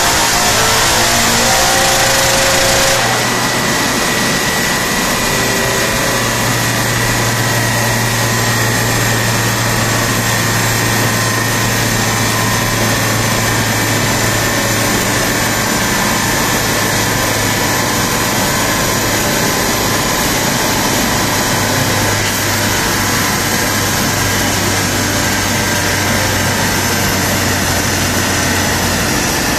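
Mercedes M119 5.0-litre V8 in a W201 running on a chassis dynamometer with tyres and rollers turning. The revs climb over the first three seconds, then hold at a steady speed for the rest.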